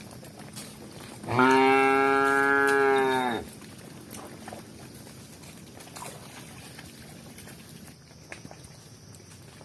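A cow mooing once: a single long call of about two seconds at a steady pitch, starting about a second in.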